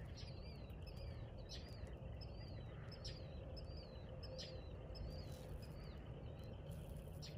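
A small bird chirping over and over in quick, high, up-and-down notes, about two a second, over a faint steady low rumble.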